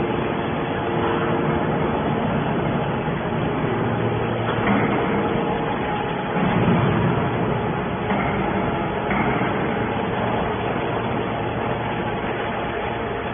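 Hydraulic scrap metal baler running: steady machine noise from its motor and hydraulic pump, with a couple of louder swells about four and a half and six and a half seconds in.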